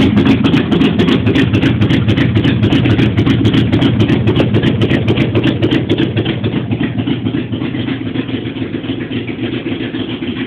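AMC 360 V8 of a 1989 Jeep Grand Wagoneer, with a two-barrel carburettor, idling loudly and steadily after a cold start, running with open heads. It grows gradually quieter over the second half.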